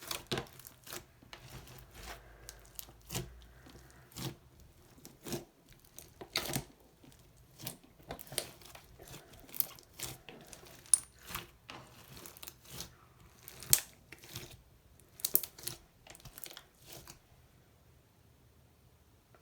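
Large mass of mixed slime being worked by hand, giving irregular crackles and pops, roughly one or two a second, as trapped air is squeezed out. The sounds stop about 17 seconds in.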